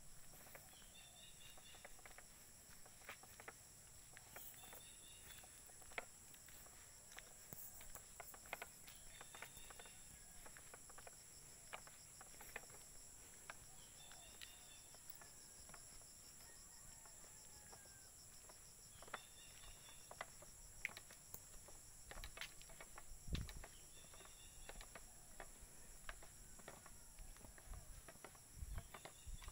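Faint, steady high-pitched chirring of crickets and other insects, with a short bird call repeating every few seconds. Scattered light clicks and a soft thump about two-thirds of the way in, from footsteps and handling.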